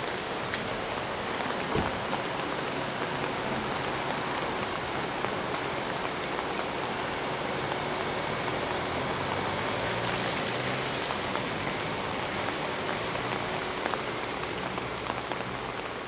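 Steady rain falling, an even hiss with a few single louder drops ticking out of it now and then.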